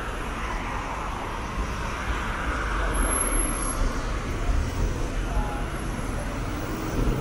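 City street traffic: the steady rumble of passing cars, swelling a little as a vehicle goes by in the middle.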